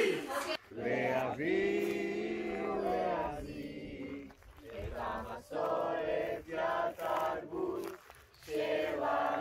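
A group of teenagers chanting and singing together in unison. It opens with a long held note and goes on in short rhythmic shouted phrases with brief breaks between them.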